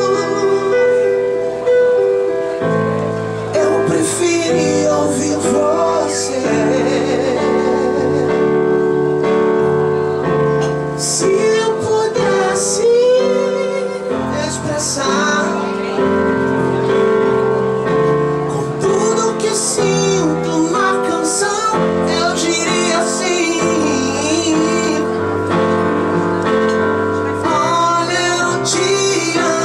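A Christian praise song performed live: a man singing into a microphone over keyboard accompaniment, with long held notes.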